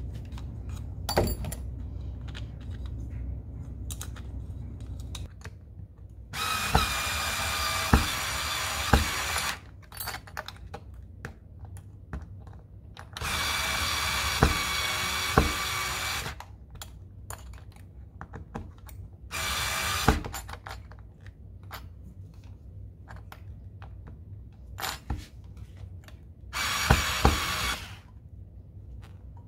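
Black+Decker LightDriver 4V cordless screwdriver driving screws into a blind mounting bracket, its motor running in four runs of a steady whine: two of about three seconds and two short ones. Scattered clicks and knocks from the screws and bracket being handled fall between the runs.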